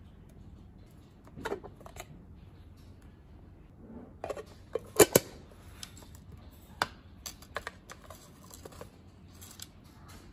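Scattered light clicks and knocks of hands handling a mother-of-pearl mosaic tissue box and shell tile, turning the box over and setting it down, with two sharper knocks close together about five seconds in.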